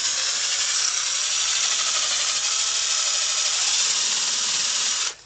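Electric drill spinning a buffing pad against a plastic headlight lens, a steady whirring and rubbing that stops abruptly near the end.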